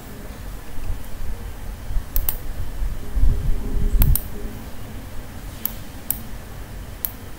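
A few sharp computer mouse clicks, in close pairs and singles, over a steady low hum. The hum swells for about a second near the middle.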